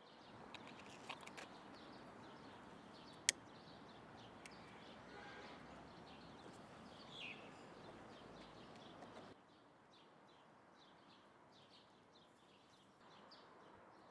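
Near silence: faint outdoor ambience with a few faint bird chirps and a single sharp click about three seconds in. The sound drops away to almost nothing about nine seconds in.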